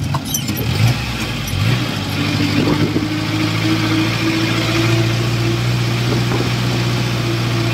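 Owner-type jeep's engine running while it drives, with a steady hum over road and wind noise; the engine note shifts in the first two seconds, then holds steady.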